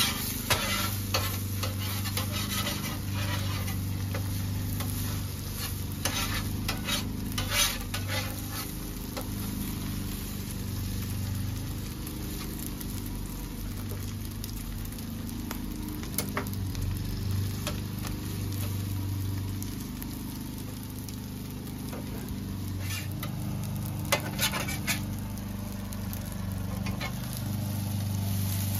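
Eggs and rice sizzling on a flat-top griddle, with a metal spatula scraping and tapping on the griddle plate in several bursts, over a steady low hum.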